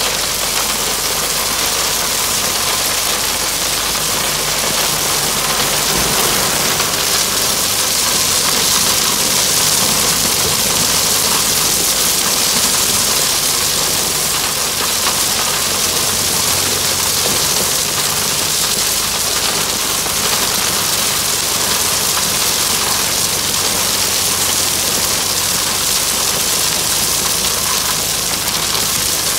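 Caterpillar 3406B inline-six diesel of a 1988 Ford LTL 9000 tandem dump truck running steadily as the truck backs slowly with its body raised, while inch-and-a-half crushed stone spills out of the open tailgate in a continuous rush onto the road.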